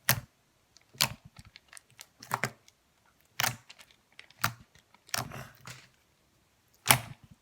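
Water-heavy jiggly slime being squeezed and poked by hand, giving short wet clicks and pops about once a second, some in quick pairs.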